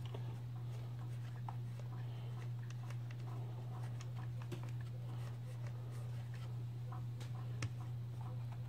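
Faint, scattered small clicks and scrapes of a screwdriver and fingers working on a chainsaw's plastic housing and screws, over a steady low hum.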